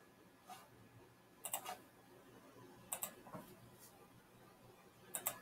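Faint computer mouse clicks, four or so spread through the quiet, two of them coming as quick pairs.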